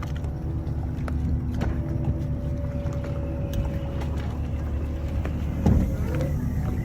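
Foiling motor yacht under way, a steady low rush of water and wind with a faint motor hum, growing a little louder in the first second. A brief louder knock comes near the end.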